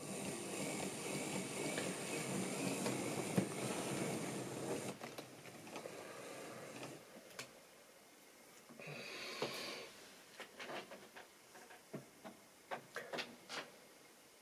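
Model railway train running on sectional track: the rattle of the wheels and the hum of the locomotive motor for about five seconds, then dying away. It is followed by scattered light clicks and ticks.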